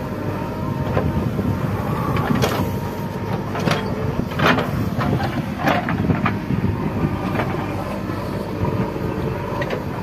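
JCB 3DX backhoe loader's diesel engine running under load as the backhoe digs into soil, with several sharp clanks and knocks from the working digging gear.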